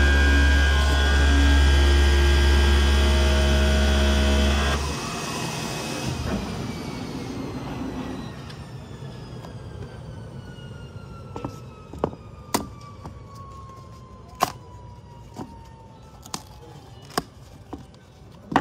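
CNC flatbed knife cutting machine running with a loud steady hum and several held tones, which cut off suddenly about five seconds in. A single whine then falls slowly as the machine's motor winds down. Sharp separate clicks come in the second half.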